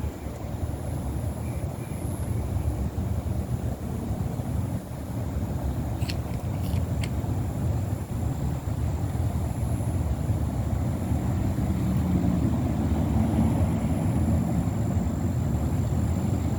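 A steady low outdoor rumble that swells a little about twelve seconds in, with a few faint clicks about six seconds in.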